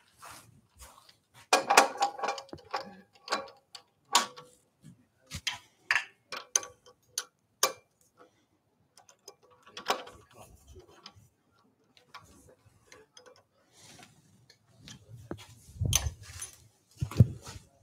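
Metal clinks and knocks from a four-jaw woodturning chuck being fitted to the lathe spindle and its jaws tightened onto a wooden blank with a chuck key. The lathe is stopped. The sharp, ringing knocks come in the first few seconds, then scattered clicks, and a couple of duller thuds near the end.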